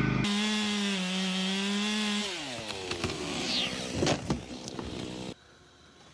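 Chainsaw running at high revs, its pitch dropping after about two seconds as it bogs down cutting into a log, with a few sharp cracks near the middle. It cuts off abruptly near the end, leaving only a faint background.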